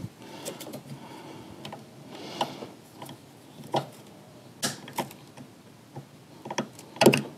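Scattered light clicks and taps of a small screwdriver working the screw terminals of an Intervolt DCC Pro DC-DC battery charger as wires are fastened in, with a sharper knock near the end.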